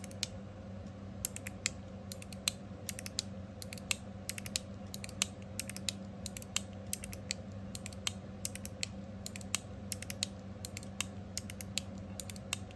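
Copper TopB mechanical fidget slider worked back and forth by thumb, its ball-and-spring detents giving a run of sharp clicks, a few a second and irregularly spaced. The detents are tuned on the stiff side.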